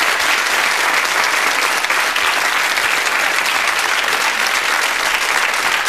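Studio audience applause: many hands clapping at once, steady and loud throughout.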